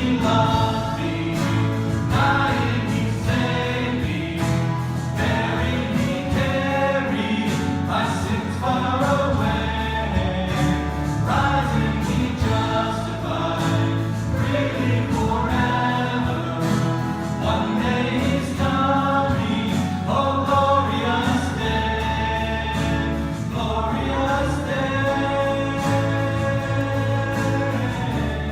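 A worship song: a group of voices singing together over steady instrumental accompaniment, with long held notes.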